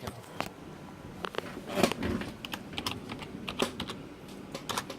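A run of irregular, light clicks and taps, like keys being typed or pressed.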